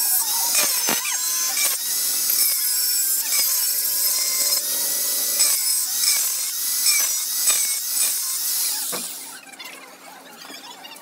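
A tool cutting into a motorcycle part: a loud, steady high hiss broken by repeated strokes, stopping about nine seconds in.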